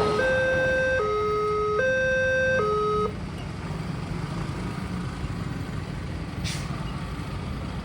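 Railway level-crossing warning siren sounding a two-tone hi-lo alarm, each tone held for just under a second, which cuts off about three seconds in. After that only a steady low traffic and engine rumble remains, with one short click near the end.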